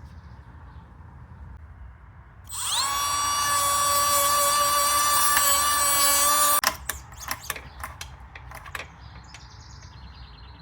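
Milwaukee rotary tool spinning up about two and a half seconds in, running with a steady high whine for about four seconds, then stopping abruptly. A few clicks and knocks follow.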